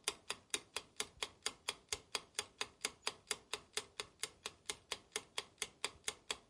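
Clock-style ticking sound effect: sharp, even ticks about four a second, marking the exam's final minutes running out.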